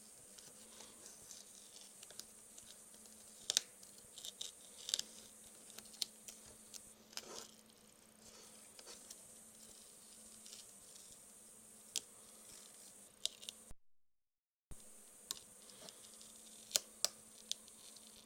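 CNC plasma table cutting vinyl with a drag knife: a quiet steady hum and hiss with scattered sharp clicks and ticks, busiest a few seconds in and near the end. The sound drops out completely for about a second roughly two-thirds of the way through.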